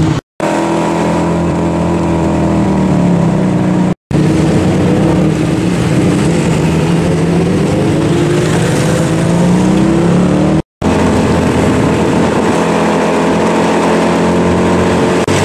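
Tuk-tuk engine running while riding through traffic, its pitch rising and falling as it speeds up and slows down. The sound cuts out abruptly three times for a split second.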